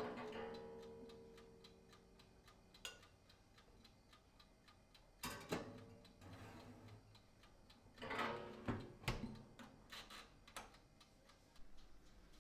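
Emerio countertop oven's mechanical timer ticking steadily. A ringing metal clank comes at the very start, and more clatter of the oven door and wire rack follows about five seconds in and again around eight to nine seconds, as something is set inside.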